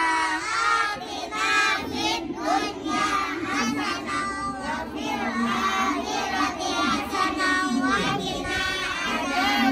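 A group of young children chanting an Arabic prayer together in a sing-song unison recitation.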